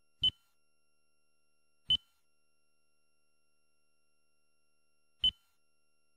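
Three short, high beeps from a Toyota navigation head unit's touchscreen, each acknowledging a press of the on-screen Type button as it steps to another satellite radio channel. The second beep comes under two seconds after the first, and the third about three and a half seconds later.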